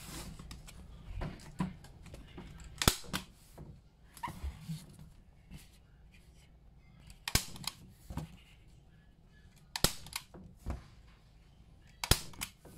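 Manual staple gun (tacker) firing staples through a corrugated plastic sheet into a wooden shoji frame: four loud, sharp snaps a few seconds apart, with softer clicks and rustling of the sheet and the tool between them.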